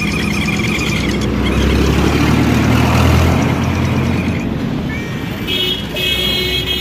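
Street traffic: a motor vehicle's engine rumble swells and passes, loudest about three seconds in. From about five seconds in, vehicle horns sound.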